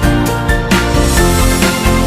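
Background music with a steady beat and pitched melodic notes.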